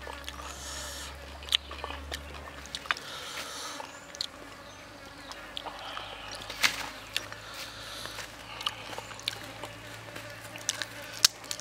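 Tableware handling: scattered light clicks and knocks of a ceramic teapot and cup, with tea poured from the teapot into the cup about midway. Near the end, a grilled chicken leg is pulled apart by hand.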